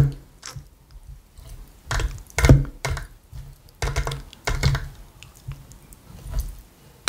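Utensil knocking and clicking against a bowl as salad is stirred and handled close to the microphone, in short paired knocks every couple of seconds.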